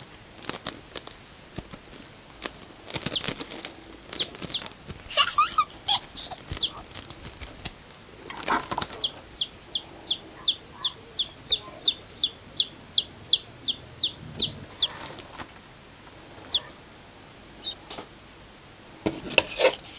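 Short, high chirps, each sliding down in pitch. A few come singly, then about twenty follow in an even run at roughly three or four a second for about six seconds.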